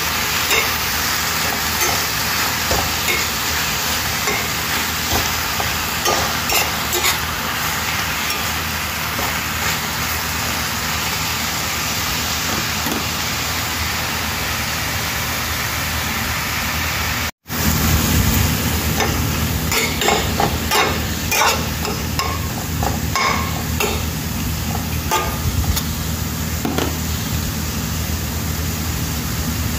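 Spinach sizzling in a stainless steel frying pan while a metal slotted spatula stirs it, with frequent short clicks and scrapes of the spatula on the pan. The sound cuts out for an instant about two-thirds of the way through, and after that a low hum runs under the sizzling.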